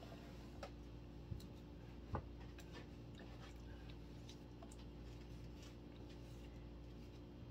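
Wooden stir stick scraping and tapping faintly against a plastic mixing cup as two-part silicone rubber is stirred: scattered light clicks, with two sharper knocks in the first couple of seconds, over a steady low hum.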